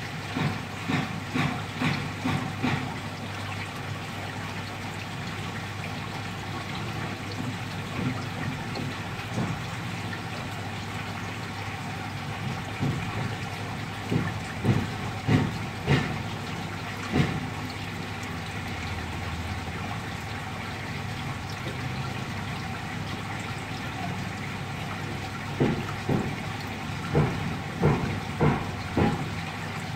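Steady hum of a water pump with running water in the crab tank. Clusters of short knocks come over it three times: at the start, in the middle and near the end.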